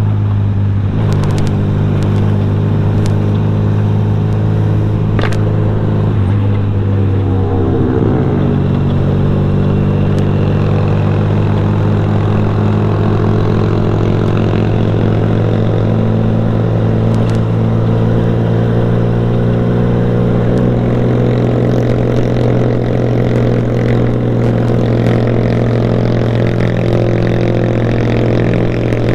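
Motorcycle with an aftermarket racing exhaust running under way at a steady, loud note. A few seconds in, the revs drop, then they hold steady again. A few sharp clicks are heard along the way.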